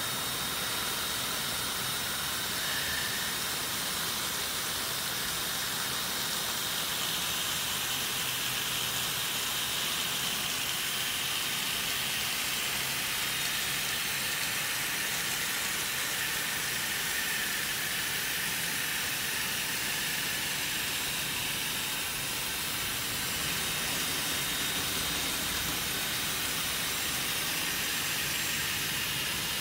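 Steady rushing hiss of air blowing on a plastic Strandbeest walking model whose wind-driven propeller is spinning, with a faint thin whine above it.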